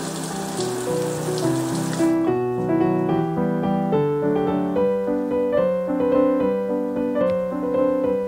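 Tap water running onto a stainless steel sink while a copper scrubber is rinsed under it, cutting off suddenly about two seconds in. Background music of piano-like keyboard notes plays throughout.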